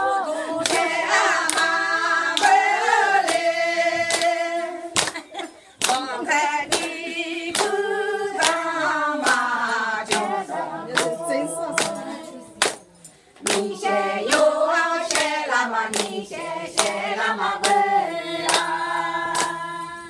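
A group of Aini (Akha) villagers singing a folk song together, keeping time with hand claps at about two a second. The singing breaks off briefly twice, about five seconds in and again past halfway, then picks up again.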